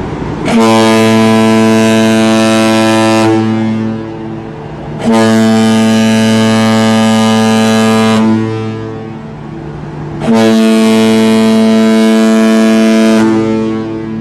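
Ship's horn sounding three long blasts, each about three seconds, with a quieter steady hum between them.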